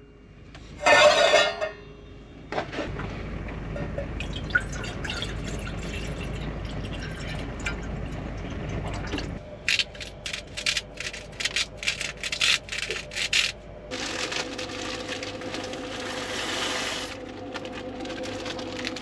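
Water pouring steadily into an enamel pot for several seconds. It is followed by a run of quick clicks and rattles, then a steady hiss.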